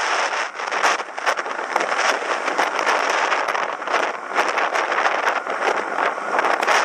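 Wind and road noise picked up by a bicycle-mounted camera while riding: a loud, rough rush peppered with constant crackles.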